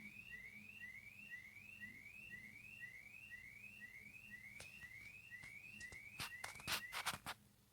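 Car alarm going off faintly, a rising whooping chirp repeated about twice a second, which stops near the end. Several sharp, louder clicks come just before it stops.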